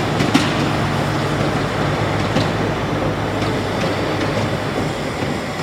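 Crawler bulldozer running: a steady low diesel drone with metallic clatter, and a few sharp clanks near the start.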